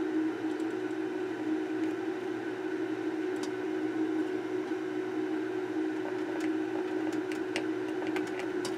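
A steady hum runs under faint scratching and ticking as a small screwdriver tip scrapes the solder pads of a circuit board, the ticks coming more often in the second half.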